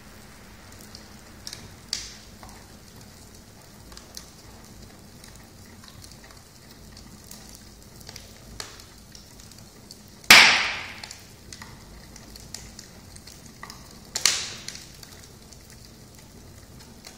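Wood fire burning in a fireplace: a steady hiss with scattered small crackles and three loud pops from the burning logs, about 2 seconds in, about 10 seconds in (the loudest) and about 14 seconds in.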